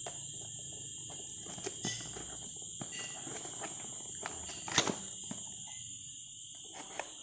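Scattered light clicks and rustles of a cardboard product box being handled and opened, with one sharper click about five seconds in, over a steady high-pitched chirring in the background.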